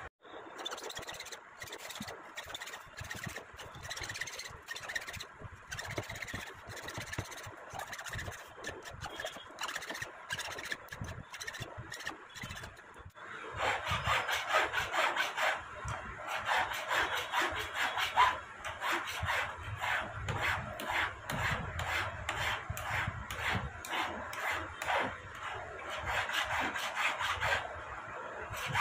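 A jeweller's hand tool rasping on a silver ring in quick, repeated strokes. It breaks off briefly about halfway through and comes back louder.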